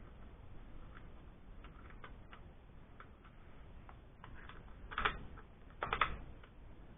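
Light clicks and taps of Allen wrenches on the screws and metal parts of an airsoft rifle as it is taken out of its stock, with two louder clusters of clicks about five and six seconds in.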